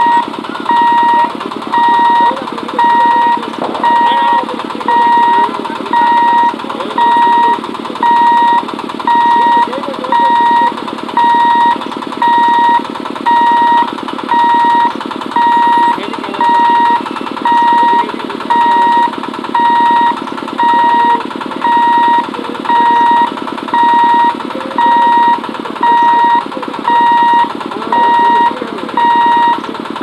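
Level crossing warning hooter beeping at one steady pitch, about once a second, warning of an approaching train. Beneath it is a steady low running noise from the approaching EMU local train.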